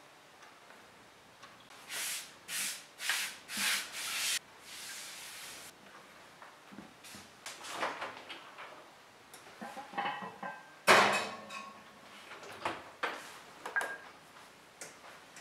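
Five short rubbing swishes, then clicks and clatter of an oven door and rack. The loudest is a sharp metallic knock with a brief ring about eleven seconds in.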